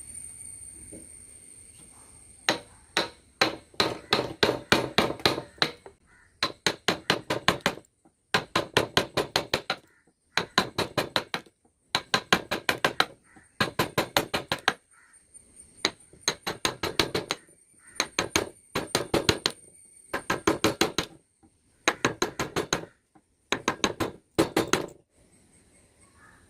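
A wood-carving chisel driven into wood with quick, light hammer taps, about six taps a second in runs of one to two seconds, broken by short gaps of silence.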